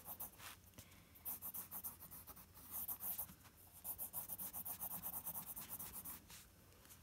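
Pencil drawing on paper in quick short strokes, in a few runs with brief pauses between them.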